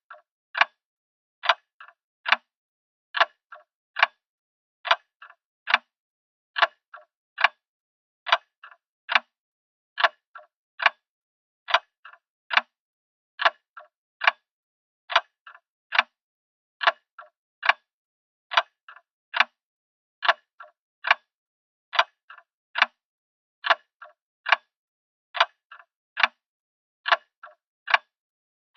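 Grandfather clock ticking steadily, a little more than one tick a second, each tick with a fainter click just after it from the escapement.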